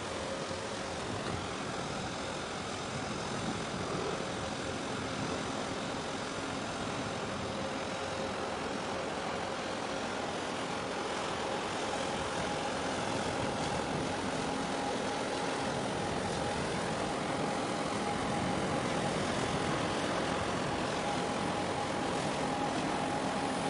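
Steady engine drone of ships under way in the harbour, with a faint steady whine that shifts higher about halfway through.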